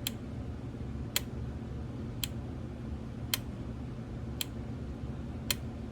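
Data East pinball machine's solenoid test: six sharp clicks, about one a second, as the driver board pulses each coil in turn, over a steady low hum.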